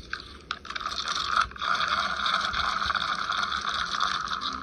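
Fishing reel being cranked: a few clicks, then a steady mechanical whirr that stops suddenly.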